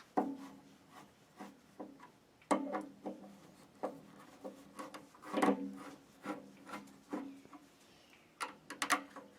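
Screwdriver loosening the terminal screws on an electric water heater's heating element to free the wires: irregular metal clicks and scrapes, several with a brief low ringing.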